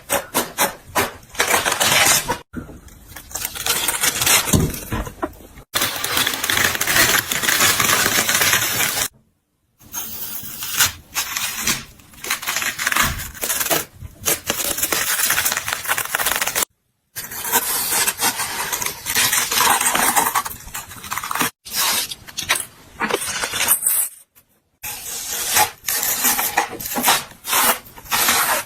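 Crisp, juicy watermelon crunching and crackling in irregular bursts with sharp clicks, broken by a few abrupt silences.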